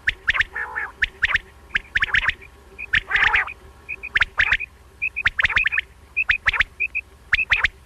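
Common quail calling: rapid sharp, clipped notes in quick groups of two or three, with soft short paired notes between them and a louder, harsher call about three seconds in.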